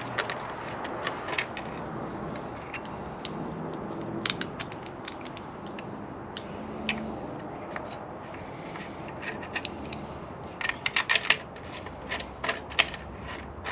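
Small metallic clicks and clinks of a screwdriver working a motorcycle headlight mounting bolt and a flyscreen bracket being fitted against the headlight mount, with a quick run of clinks about ten to eleven seconds in.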